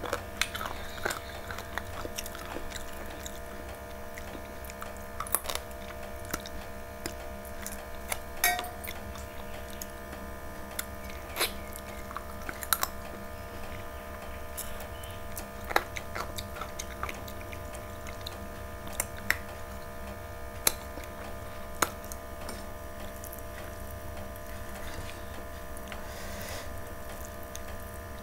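A person chewing a mouthful of chicken curry and rice eaten by hand, with scattered short wet clicks and smacks every few seconds. A steady electrical hum runs underneath.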